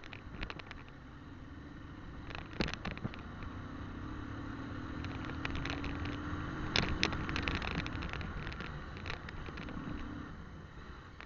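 Motorcycle engine running steadily while riding over a broken, potholed road, with knocks and rattles from the bumps; the loudest knocks come about seven seconds in.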